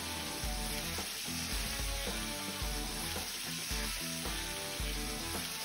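Hot butter and fat sizzling steadily in a frying pan as it is spooned over fillet steaks during basting. Background music with a bass line plays under the sizzle.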